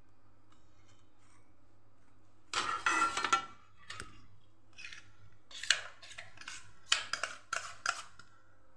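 Steel utensils scraping and clinking as thick dhokla batter is scraped out of a bowl into a greased steel plate: a quiet start with a faint hum, then a second of dense scraping and a run of short scrapes and taps.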